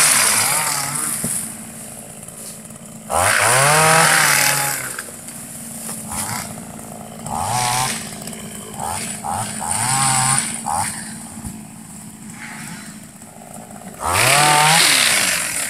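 Small petrol engine of a motorised sickle-type oil palm pole cutter revving up hard and falling back to idle: three long revs, near the start, about three seconds in and near the end, with several shorter blips between, as it drives the sickle blade at the top of the pole.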